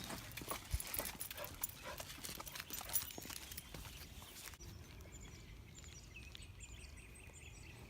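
A dog moving about close by: a quick run of light clicks and rustles that drops away about four and a half seconds in, leaving faint high chirps.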